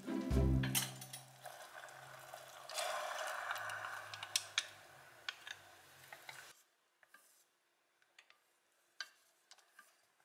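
Wooden chopsticks stirring a starch-thickened mushroom broth in a stainless steel pot, with a liquid swishing and light clicks of the chopsticks against the pot. Background music with a bass line plays over the first part and cuts off about two-thirds of the way through; fainter clicks follow.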